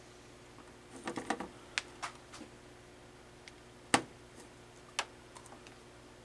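Light clicks and taps of test leads and alligator clips being handled on a workbench: a quick flurry about a second in, then single sharp clicks, the loudest about four seconds in, over a faint steady hum.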